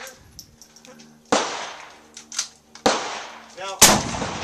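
Rifle shots on an open firing line: three sharp reports, about a second and a half apart and then about a second apart, the last the loudest, each trailing off in a brief echo.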